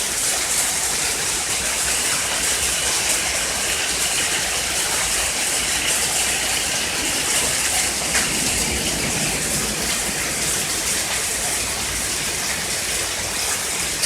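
Hailstorm coming down hard, hail and rain falling in a steady, dense hiss.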